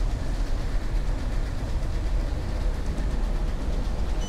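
Steady low rumble of outdoor city background noise, with no distinct events standing out.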